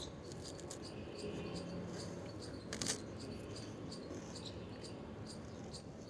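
Faint, high-pitched chirps repeat several times a second over low background noise, with one sharp click about three seconds in.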